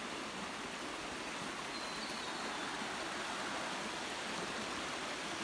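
A creek running steadily: an even rush of flowing water with no break.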